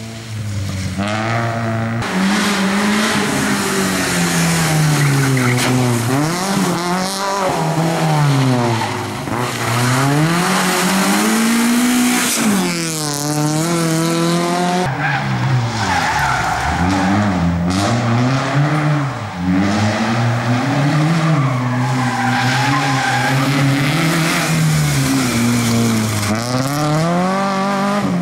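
Small rally cars' engines revving hard, the pitch climbing and dropping again and again with gear changes and corners. Tyre noise sits under the engine note.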